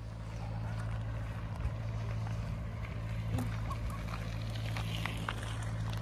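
A narrowboat's diesel engine running steadily at a low, even chug as the boat moves along the canal, getting a little louder over the first second.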